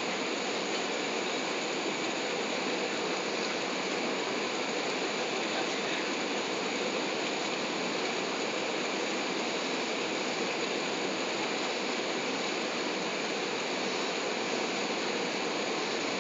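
Steady cabin noise inside an Airbus A380 airliner in flight: an even rushing hiss of air over the fuselage mixed with the engines' drone, unchanging throughout.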